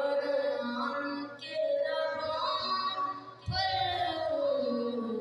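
A boy's voice chanting an Urdu devotional poem (kalaam) into a microphone, in long, ornamented held phrases with short breaks between them. The last phrase slides downward in pitch.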